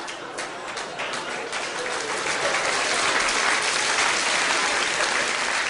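Theatre audience laughing and applauding after a punchline. Scattered claps swell within a couple of seconds into dense, steady applause.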